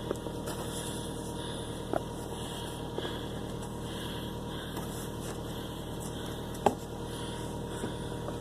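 A vehicle engine idling steadily, with a few short knocks over it, the loudest about two-thirds of the way through.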